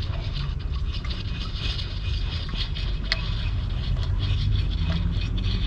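Car engine idling steadily, with light clicks and ticks over the running.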